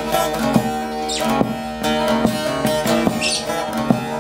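Bağlama (long-necked Turkish saz) with a carved mulberry bowl, played as an instrumental passage: a run of picked notes over strings that ring on steadily underneath.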